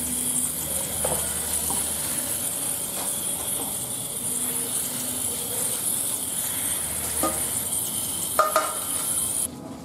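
Water spraying from a small hose nozzle onto a fish in a basin of water: a steady hiss that cuts off suddenly near the end. A few light knocks and splashes come from the fish being handled, the loudest just before the spray stops.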